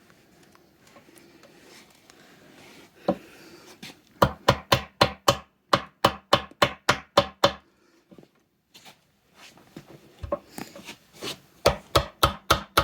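Mallet striking a chisel, chopping waste out of a notch in wood: quick even blows, about four a second, in two runs with a pause of a couple of seconds between them.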